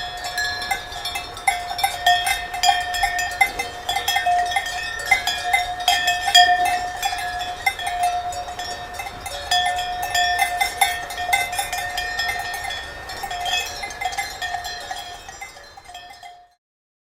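Handheld cowbells being shaken, a continuous rapid clanging on one steady bell pitch. It dies away near the end and cuts off suddenly.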